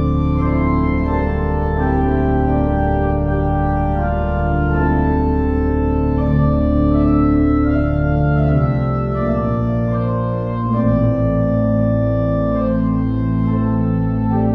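Church organ playing slow, sustained chords on its keyboards over a steady low bass, the chords changing every second or so.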